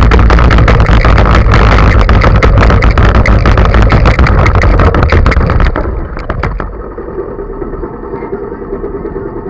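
Go-kart engine running with a loud, dense rattle from the camera mount as the kart drives over grass; about six seconds in the rattle stops and the engine drops to a quieter, steady idle.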